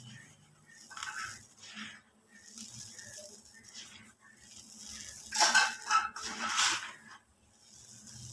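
Hands crushing and crumbling dry cement and concrete lumps in a plastic bucket: gritty crunching and rustling of powder in separate bursts, the loudest a little past halfway through.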